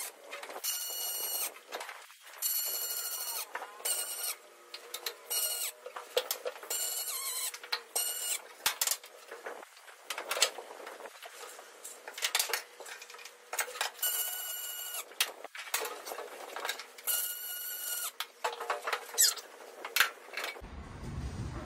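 MIG welding on an aluminium boat frame: a series of short weld runs, each about a second of buzzing hiss, with brief pauses between them.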